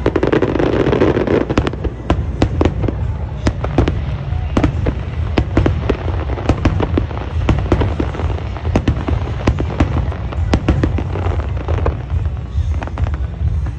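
Fireworks going off: many sharp bangs and cracks, several a second at irregular spacing, over a continuous low rumble.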